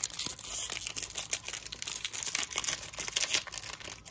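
Foil wrapper of a Pokémon TCG booster pack crinkling and tearing as it is pulled open by hand: a dense run of fine crackles.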